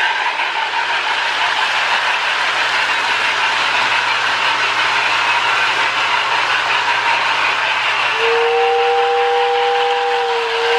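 Marx toy steam train running on its track with its Sound of Power tender's electronic sound board making a loud, steady steam-engine sound, a sign the repaired conductive actuator wheel is picking up power. About eight seconds in, a steady two-note whistle sounds for a couple of seconds.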